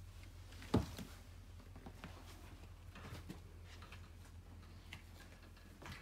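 Footsteps on the floor of an RV: one heavy thump about a second in, then faint light taps and clicks, over a low steady hum.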